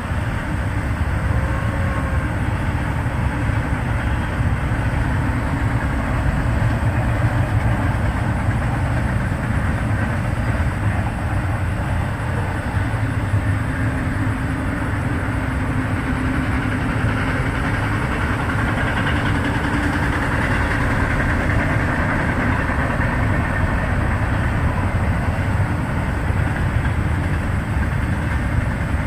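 Freight train's cars rolling past, a steady rumble of wheels on the rails that holds for the whole stretch.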